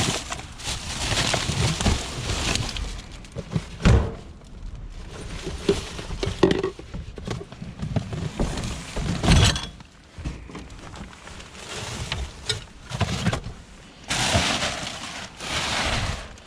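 Junk being rummaged through in a skip: irregular knocks, thunks and clatter of scrap and debris being shifted, with rustling between. The sharpest knocks come about four seconds in and again around nine seconds.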